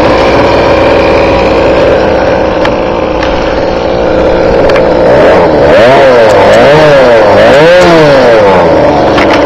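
Goped G2D Sport's small Zenoah G2D two-stroke engine idling steadily, then revved up and let back down about three times in quick succession over the last few seconds.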